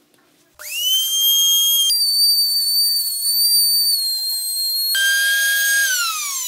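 Compact trim router starting about half a second in, quickly rising to a loud, high, steady whine. The pitch jumps abruptly twice, then falls smoothly near the end as the motor is switched off and spins down.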